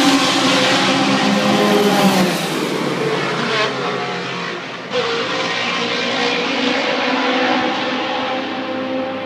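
Race cars running on a wet circuit, their engines loud, one note falling in pitch as a car goes by. About five seconds in another car's engine comes in sharply and runs on steadily as it pulls away.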